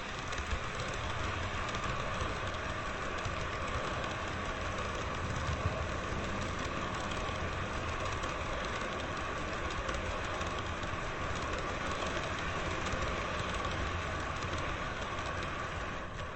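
Train running: steady rolling noise with a clatter of wheels on rail.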